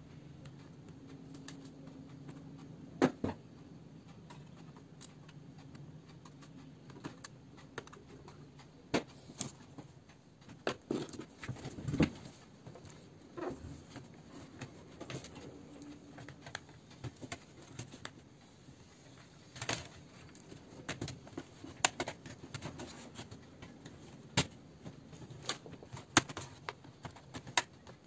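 Irregular sharp plastic clicks and snaps from a Dell Inspiron 14 3000-series laptop's palmrest cover being pried and unclipped from its base. A faint low hum sits underneath.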